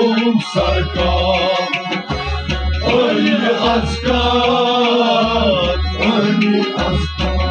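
Kashmiri Sufi devotional song: a male voice singing a melismatic, wavering line over a steady drum rhythm.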